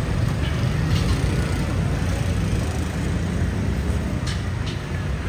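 Night street traffic: a tuk-tuk passing close, with cars and motorbikes running around it, making a steady low rumble.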